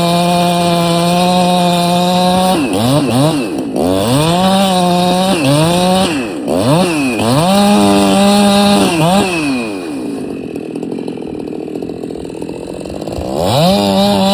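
Chainsaw engine at full throttle, then its speed dipping and climbing again and again. It drops to a lower, quieter running for a few seconds, then revs back up to full speed near the end.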